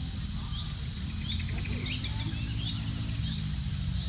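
Countryside ambience: a steady low rumble, with a continuous high-pitched insect buzz. Small birds chirp and trill on and off over it.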